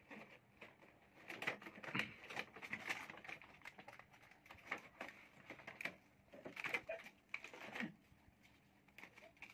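Cardboard retail box of an action camera being opened and handled: irregular rustling, scraping and clicking of cardboard, plastic and paper, busiest between about one and eight seconds in.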